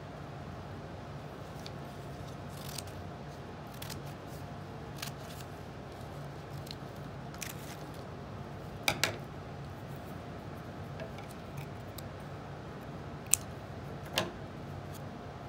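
Construction-paper pieces being handled and pressed into place, heard as scattered light paper clicks over a steady low hum. There is a sharp double click about nine seconds in and two more sharp clicks near the end.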